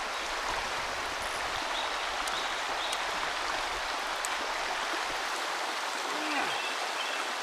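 Steady rush of a shallow river flowing over a stony bed.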